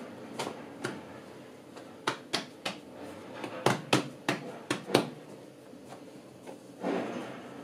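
Hands slapping and patting a soft round of bread dough down on a tiled counter, a series of sharp slaps bunched between about two and five seconds in, with a softer rubbing sound near the end as the dough is pressed out.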